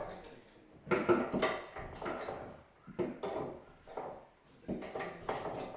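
Hard objects clattering and knocking in several irregular short bursts, with brief pauses between.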